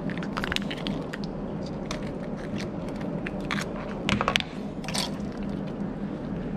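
Spiny lobster's tail shell being cut with a knife and pried open on a plastic cutting board: a run of sharp cracks and crunches, with a louder cluster of cracks about four seconds in.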